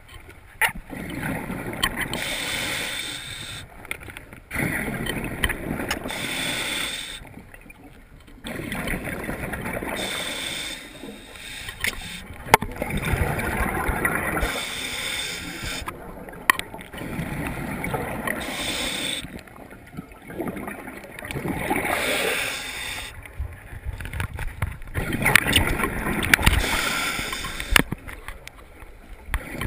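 A scuba diver's regulator breathing underwater: an inhale followed by a rush of exhaled bubbles, repeating every few seconds.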